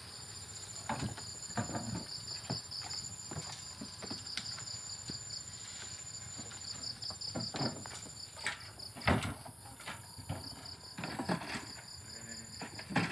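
Crickets chirping steadily in a fast pulsing trill, with several short knocks and thumps as a cooler box and gear are set down on a wooden boat.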